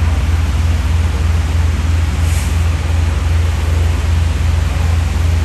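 Fire apparatus pumps running hard with large water streams flowing: a steady, heavy low rumble under a constant rushing hiss, with a brief extra burst of hiss about two seconds in.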